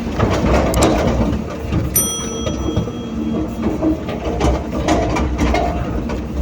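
Hydraulic excavator working: a diesel engine runs steadily under irregular clanks and clatter of metal, with one ringing metal clang about two seconds in.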